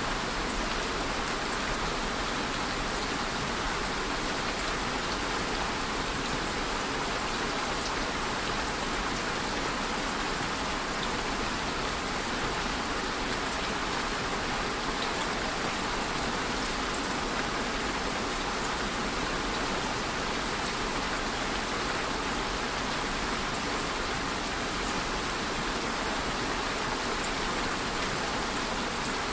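Steady rain falling, an even hiss of drops with faint scattered ticks of single drops.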